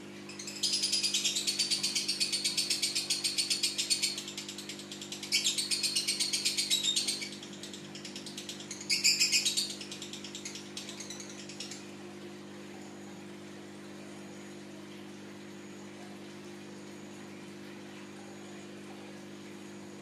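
Fischer's lovebird giving rapid, shrill, chattering trills in three loud bursts. The first lasts about three seconds, the second about two seconds starting near five seconds in, and a short one comes near nine seconds in. Softer chatter runs between them and dies out about twelve seconds in.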